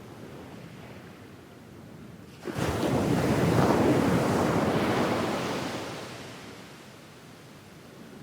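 Medium wave breaking on a sand beach: a quiet wash, then the wave comes in suddenly about two and a half seconds in and its surf fades away over the next few seconds.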